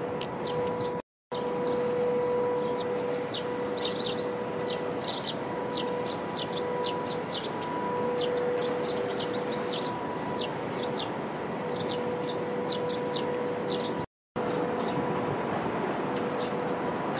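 Small birds chirping in many short, high calls over a steady outdoor background of distant city and harbour noise with a constant hum. The sound cuts out completely for a moment twice.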